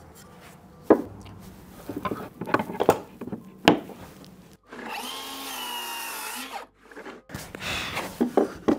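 Sharp wooden knocks and clicks from handling tools and stock on the bench, then about two seconds of a circular saw running with a steady, slightly wavering whine. The saw is set shallow to cut a channel in the wood.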